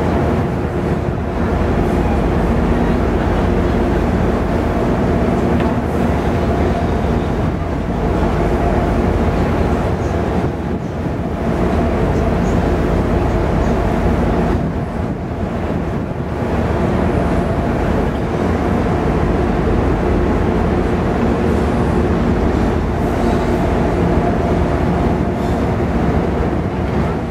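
A cruise ship's engines and machinery droning steadily under way: a loud, even rumble with a constant hum of several low tones.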